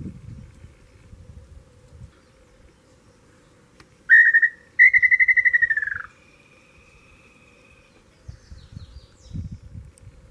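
A tinamou (inhambu) singing: a short whistled note about four seconds in, then a longer, rapidly pulsed whistle that falls in pitch. A faint steady whistle follows, then a few high chirps from other birds and some low rustling near the end.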